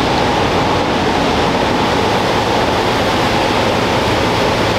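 Steady loud rush of air from the dyno cell's big cooling blower running, with no change in pitch or level.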